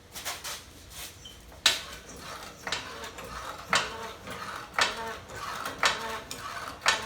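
Metal-on-metal knocks, about one a second, each with a short ring, as tools work on the steel lift-kit bracket and bolt. A few lighter clicks come first.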